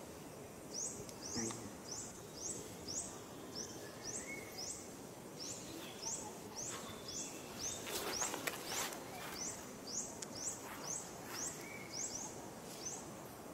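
Outdoor ambience with a high, thin chirp repeated about twice a second, each one sweeping upward, over a faint steady background. A few fainter, lower calls sound between the chirps, and a brief crackle comes about eight seconds in.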